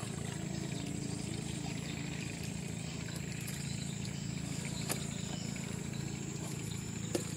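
A steady low engine drone, with a thin steady high whine above it and a couple of small clicks, one about midway and one near the end.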